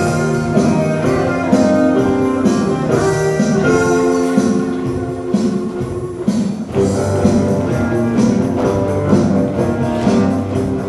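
Show choir's live backup band playing an upbeat instrumental passage with a steady beat. The music thins briefly about six seconds in, then comes back with a fuller bass.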